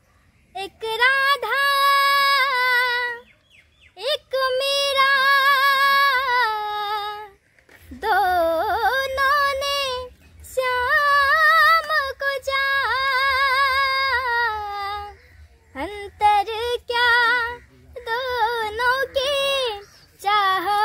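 A young girl singing solo with no instruments. She holds long notes with a wavering vibrato in phrases of a few seconds, breaking briefly for breath, and the phrases grow shorter near the end.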